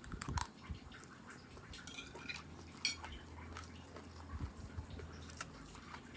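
A person eating a mouthful of instant noodles: wet slurping and chewing with small mouth clicks, and a sharp click about three seconds in.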